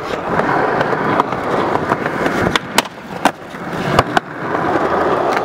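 Skateboard rolling on concrete: a steady noise of wheels on the ground, with a handful of sharp clacks of the board in the middle, where the rolling briefly drops away and then builds again.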